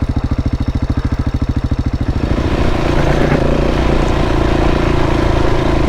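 KTM 690 single-cylinder motorcycle engine chugging in slow, even pulses at low revs. About two seconds in, the revs rise and it runs faster and smoother under throttle.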